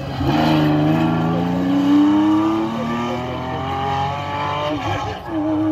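Historic Porsche 911 rally car accelerating hard out of a corner, its engine note climbing through the revs, breaking at two upshifts about a third and near the end of the way through, as it pulls away down the stage.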